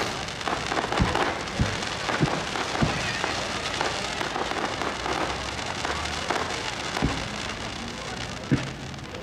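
Aerial fireworks going off overhead: sharp bangs every half second or so in the first three seconds and twice more near the end, over a continuous dense crackling of crackle stars.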